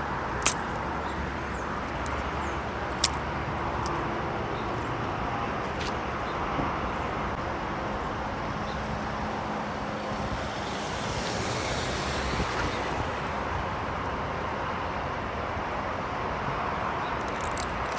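Steady outdoor road-traffic noise, with one vehicle passing and swelling up about eleven seconds in. Two sharp clicks come near the start.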